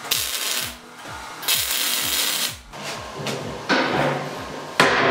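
MIG welder laying two short, crackling welds in the first half, over background music with a steady beat. Later comes clattering handling noise with a sharp knock near the end.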